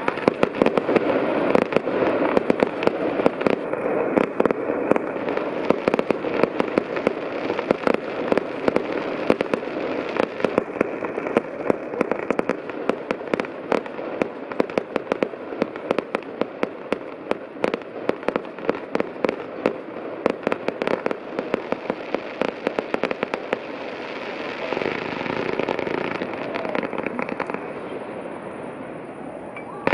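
Fireworks display: a fast, continuous barrage of bangs and crackling shells, thinning out over the last few seconds.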